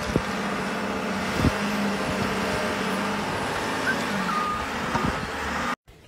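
Wheel loader pushing snow with a pusher blade, its diesel engine running steadily under load. The sound cuts off suddenly near the end.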